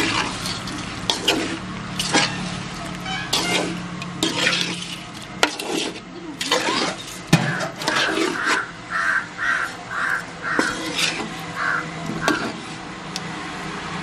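Metal spoon scraping and clinking against a metal kadai while mango pieces are stirred. In the second half a crow caws over and over, about twice a second.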